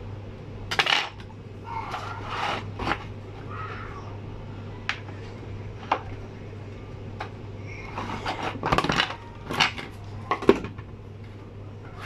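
Small metal tools and parts clinking and tapping on a hard workbench surface: about a dozen irregular short clicks and clatters, the loudest about ten and a half seconds in, over a steady low hum.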